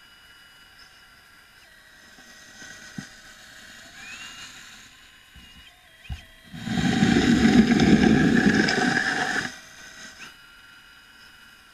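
Radio-controlled scale Liebherr L576 wheel loader running with a thin electric whine that steps up in pitch a couple of times. A little past the middle comes about three seconds of loud crunching and scraping as the loader works through the gravel and soil.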